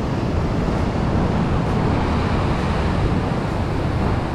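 Sea surf washing against a rocky shore, a steady rush of noise with no breaks.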